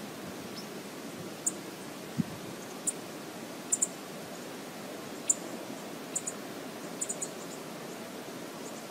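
Steady outdoor hiss picked up by a remote wildlife camera's microphone, with about ten short, faint, high-pitched ticks scattered through it.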